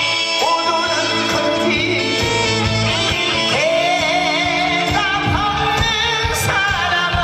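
Live trot song: a singer holding notes with vibrato over a full backing band.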